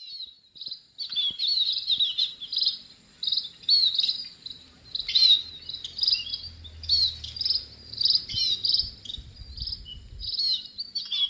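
Small bird chirping and twittering rapidly: a quick, irregular string of short high chirps, each a little sliding note, with a faint steady high tone behind.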